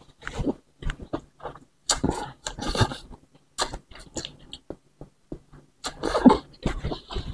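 Slurping and chewing of bakso meatball soup with rice vermicelli noodles: short slurps of noodles and broth off a spoon, with quieter chewing and lip noises between them.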